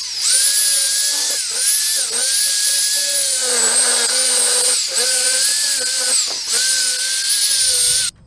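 Electric angle grinder with a buffing pad whining at high speed while polishing an aluminium crankcase cover. Its pitch sags briefly and recovers about four times as it is pressed onto the metal, and it cuts off just before the end.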